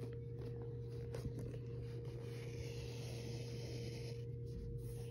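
Shoelace rubbing and sliding through the eyelets of a Vans Old Skool sneaker as it is pulled through, a soft scratchy rustle that is strongest in the middle, over a steady low hum.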